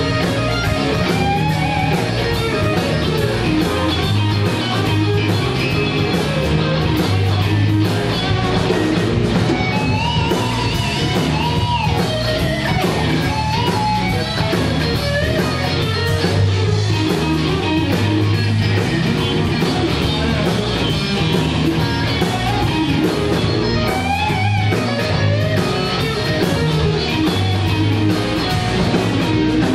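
Live blues band playing: electric guitars, bass guitar and drums. A lead guitar line bends up and down over a steady cymbal beat and a driving bass line.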